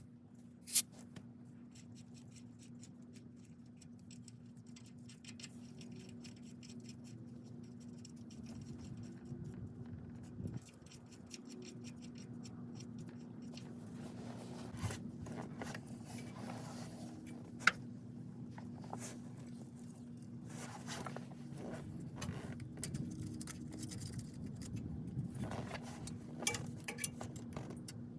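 Scattered metallic clicks, clinks and light scraping of hand tools and parts being handled during driveshaft U-joint work, with a few sharper ticks, over a steady low hum.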